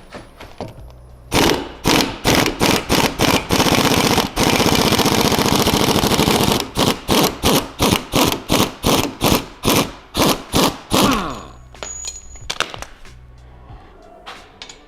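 Impact wrench hammering on a rear suspension arm bolt in a string of short trigger bursts, with one longer run of about two seconds in the middle, then winding down with a falling whine as it loosens the bolt.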